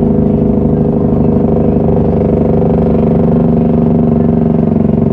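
Heavy dump truck's diesel engine pulling under load, heard from inside the cab: a loud, steady drone at a constant pitch.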